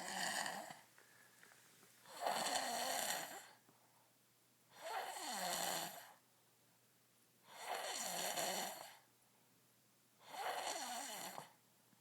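A man snoring in deep, regular breaths: the tail of one snore, then four long snores about every two and a half to three seconds. Each snore lasts over a second, and its pitch slides downward as it goes.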